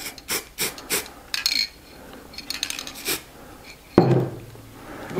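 Spray adhesive hissing from an aerosol can in several short bursts, with clicks from handling, and a sharp knock about four seconds in.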